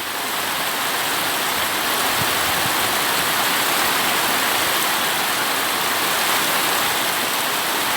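Heavy tropical rain pouring down in a downpour: a dense, steady hiss that swells slightly in the first second and then holds even.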